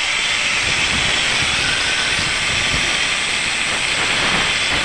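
Handheld angle grinder running steadily, its disc grinding into the base of a concrete wall to cut the line for wall flashing. A loud, unbroken, high-pitched grinding hiss.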